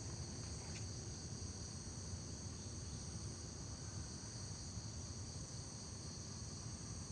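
Steady insect chorus: several high tones held without a break, over a low hum.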